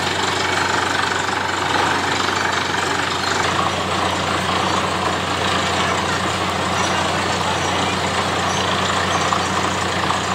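Truck-mounted borewell drilling rig running while drilling: a steady low engine hum under a loud, even rushing noise.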